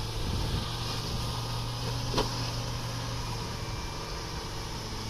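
A vehicle engine running steadily with a low hum, and a single short click about two seconds in.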